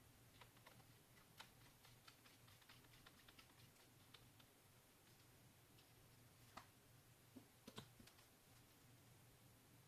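Near silence with faint, irregular light clicks and taps, a quick run of them in the first few seconds and a few louder ones later, over a low steady hum.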